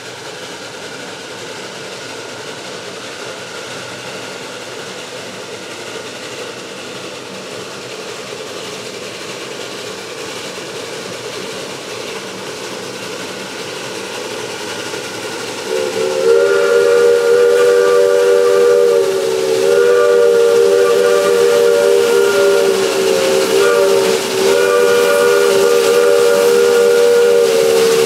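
A steady rushing noise builds slowly, then just past the halfway point a narrow-gauge steam locomotive's chime whistle sounds. It plays a loud three-note chord in several long blasts, with short breaks between them.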